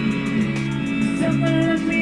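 Background music led by guitar, with sustained chords over a steady beat.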